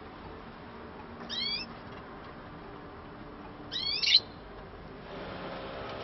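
Canary giving two short rising chirp calls, one about a second in and a louder one near four seconds, over a faint steady background noise.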